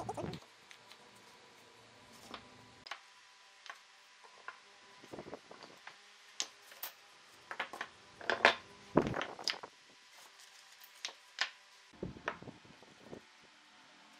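Scattered knocks and clicks of wood pieces being handled and set down, with no power tool running; a cluster of louder knocks comes about eight to nine and a half seconds in.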